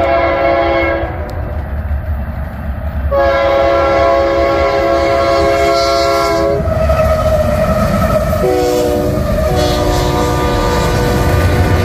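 Union Pacific GE C44AC locomotive's multi-chime air horn sounding long blasts, the chord dropping lower as the lead unit passes. Under it, the locomotives' engines and wheels rumble past with the clatter of rail joints as the consist rolls by.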